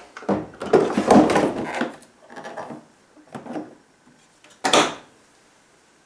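A plastic condenser unit of a Beko condensing tumble dryer is slid back into its housing, with scraping and knocking for about two seconds and some lighter handling noises. A single sharp click comes at about three-quarters of the way through.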